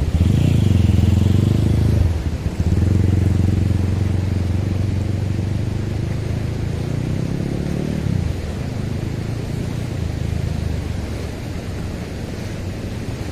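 An engine running with a steady low hum, fading away about eight seconds in and leaving a steady rush of noise.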